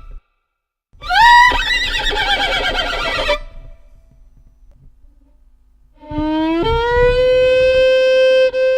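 Violin imitating a horse's whinny with a quick run of wavering, falling phrases. After a pause, about six seconds in, a long bowed note starts low, slides up and is held steady.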